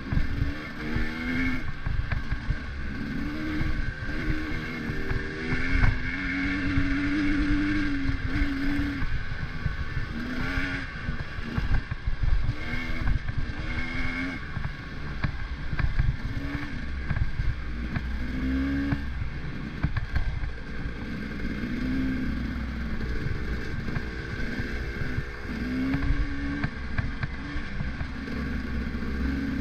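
A vehicle engine running on the move, its pitch rising and falling every couple of seconds over a steady low rumble.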